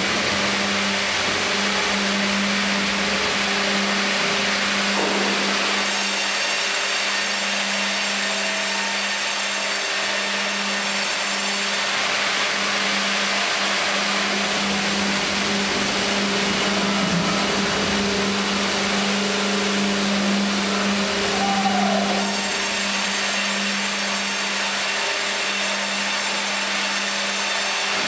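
Fimaksan Fi.120 tandem band saw and Fi.130 hydraulic log carriage running as a log is fed through and sawn: a constant low hum under a steady wash of machine noise.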